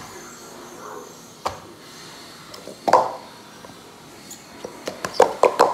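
Plastic sport stacking cups clacking together and on the mat as they are upstacked in a 3-6-3 stack. A few separate knocks come first, then a quick run of clacks near the end.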